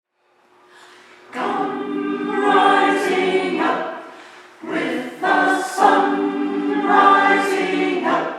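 Choir singing together, in two sustained phrases with a short break about four seconds in.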